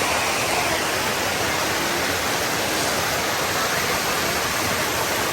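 Waterfall pouring: a steady, dense rush of falling water that holds even throughout.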